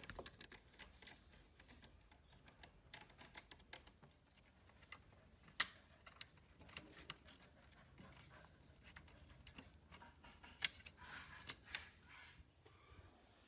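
Faint, scattered light clicks and taps of small hard objects, with two sharper clicks about five and a half and ten and a half seconds in.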